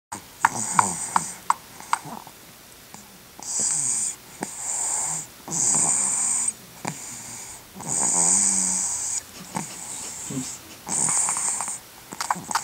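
Baby snoring in sleep: about six hissing, wheezy breaths, one to two seconds apart, starting about three seconds in. A few small clicks come in the first two seconds.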